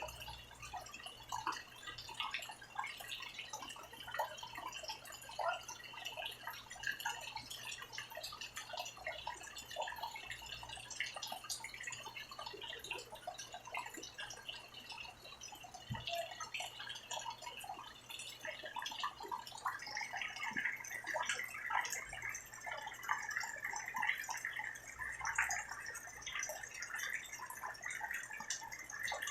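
Rain falling and dripping, a dense, irregular scatter of small drops ticking on surfaces. About twenty seconds in it thickens into a fuller, steadier hiss and grows a little louder.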